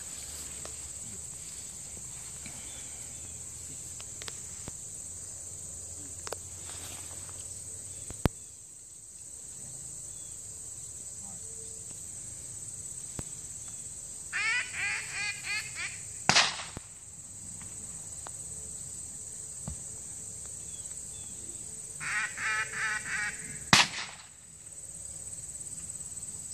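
Steady high chirring of insects. Twice a duck call is blown in a short run of quacks, each followed about a second later by a single sharp gunshot: the gunners' call-and-shot signal for a thrown mark in a retriever test.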